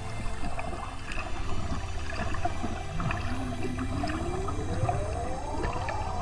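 Ambient music sound bed: a low pulsing drone with fine crackling, and a whale-like call that glides upward from about halfway through and starts to fall near the end.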